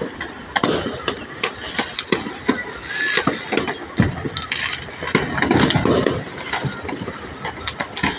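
Fireworks going off: a rapid, irregular string of sharp bangs and cracks, with people's voices underneath.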